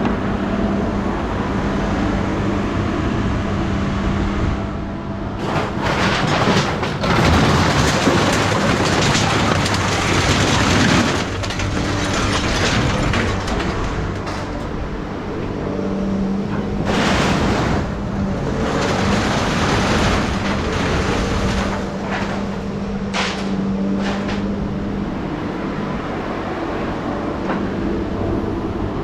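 An engine running steadily, with louder stretches of rushing noise over it several times.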